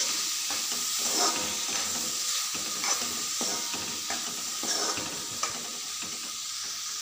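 Broccoli, peas and tomatoes sizzling in a kadai while a metal spatula stirs and scrapes them against the pan, the scraping strokes easing off near the end under a steady sizzle.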